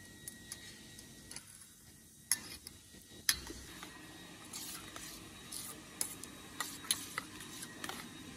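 A metal spoon stirring a runny butter and garlic mixture in a stainless-steel bowl, clinking and tapping against the bowl in irregular clicks, the sharpest about two and three seconds in, then a quicker run of lighter taps.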